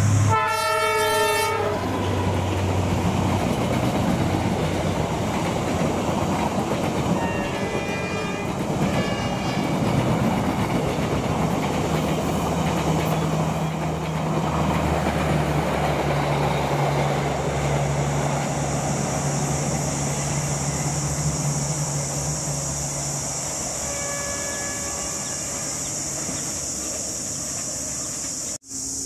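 A diesel locomotive sounds one horn blast as it approaches. Then a passenger train runs through the station at speed, with the steady clatter of wheels over the rail joints and the drone of the engine as the carriages roll past.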